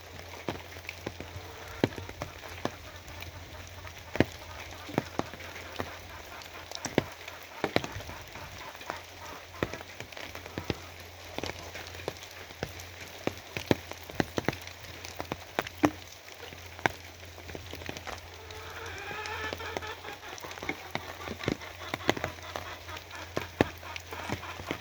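Steady rain with heavy drops striking a hard surface in sharp, irregular ticks over a constant low hum. A brief wavering call sounds about three-quarters of the way through.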